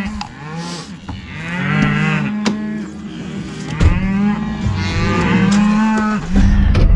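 Several Red Angus cattle mooing in answer to being called, long calls overlapping one after another.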